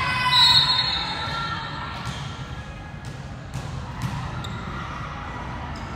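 Voices calling out in a large echoing gym, with a short, steady referee's whistle about half a second in. After that, a few sharp, separate thuds of a volleyball on the court.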